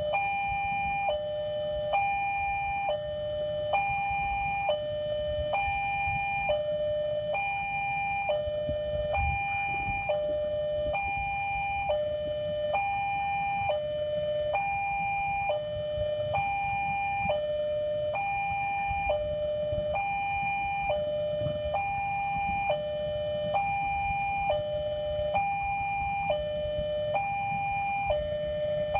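Railway level-crossing warning alarm sounding a steady two-tone electronic chime: a higher and a lower note alternate, each about a second long, warning that a train is approaching. A low rumble runs underneath.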